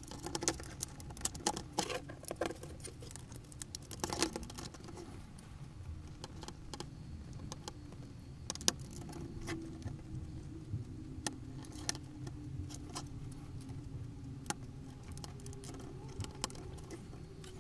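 Small irregular clicks and scratching of plastic instrument-cluster parts from a Ford Focus mk2 being handled and fitted back together, with a louder click about four seconds in.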